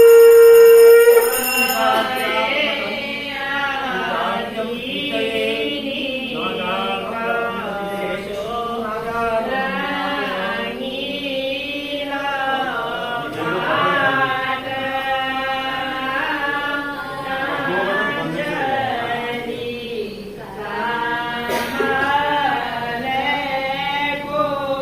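A loud steady held tone cuts off about a second in. After it, voices chant Hindu ritual mantras in a sung melody with long held notes.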